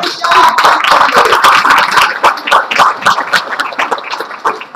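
Audience applauding loudly, a dense run of hand claps throughout.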